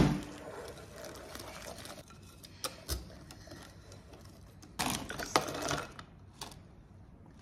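Wire whisk stirring pancake batter in a glass mixing bowl, its wires scraping and clicking against the glass. A sharp knock comes right at the start, and a denser run of louder clicks comes about five seconds in.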